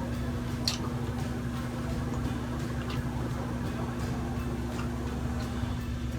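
A few sharp clicks and wet squishy mouth sounds of chewing sisig, over a steady low hum with one constant tone that starts right at the opening.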